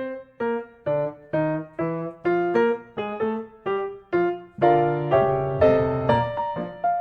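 Background piano music: a gentle melody of single struck notes, about two a second, filling out into chords about two-thirds of the way through.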